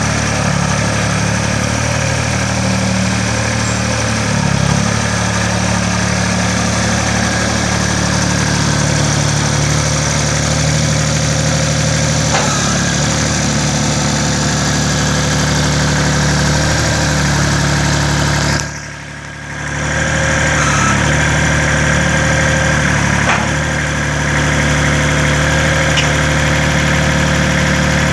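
Case IH 275 tractor's three-cylinder diesel engine running steadily, with a brief drop in level about two-thirds of the way through.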